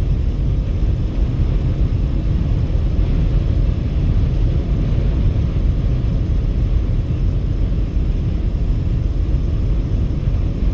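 Steady low rumble of a car cruising at highway speed: road and tyre noise with wind, unbroken throughout.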